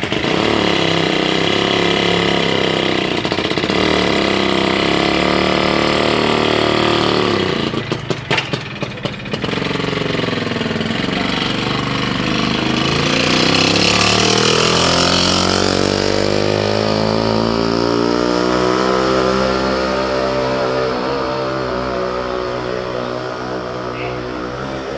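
Small engine of a Piaggio Ape three-wheeler running close by, with a burst of clicking knocks about eight seconds in. The engine revs up loudest around the middle, then changes pitch and slowly fades as the vehicle moves off.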